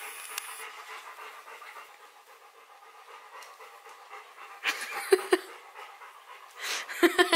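A dog panting, fading after the first couple of seconds, with a few short, louder sharp sounds about five seconds in and again near the end.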